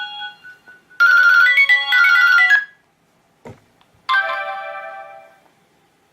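Nokia N95 built-in ringtones playing: a tone fades out at the start, then a short, bright electronic melody about a second in, a click, and another short chiming tone pattern about four seconds in that fades away.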